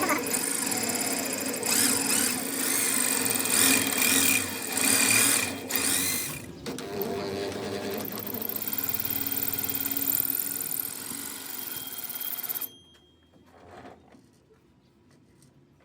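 Metalworking machinery running loud with a dense mechanical whir and some shifting pitch, then stopping abruptly about 13 seconds in, leaving only a few faint knocks.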